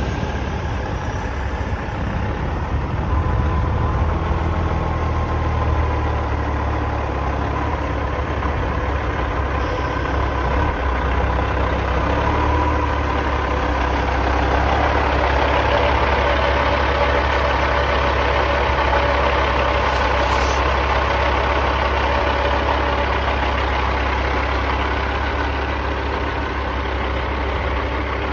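Heavy diesel semi-truck engine running steadily at low revs as the tractor rolls slowly in, a little louder through the middle.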